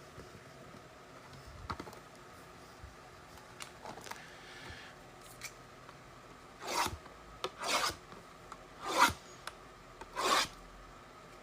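Trading card blaster box packaging being torn open by hand: faint rustling and light ticks, then four short rasping rips about a second apart in the second half.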